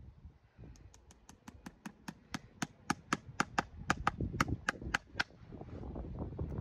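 Farrier's driving hammer tapping a horseshoe nail through a new shoe into the hoof wall: about twenty quick, light taps, roughly four or five a second, stopping about five seconds in.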